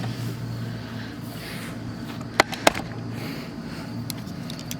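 Vintage sewing machine case being handled: two sharp clicks a quarter second apart about two and a half seconds in, then a few faint clicks near the end, over a steady low hum.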